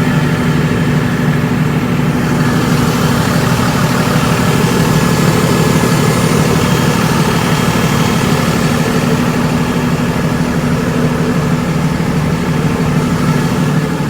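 The truck's 6.7-litre Cummins straight-six turbo diesel idling steadily.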